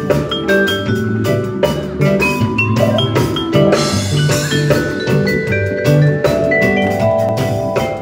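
A small live band playing: vibraphone notes ringing over a drum kit's steady beat, with electric guitar and bass, and a cymbal crash about halfway through.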